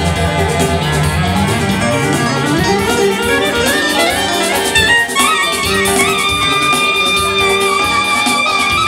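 Clarinet playing a lively melody. It climbs in quick rising runs, then from about halfway holds a long high note.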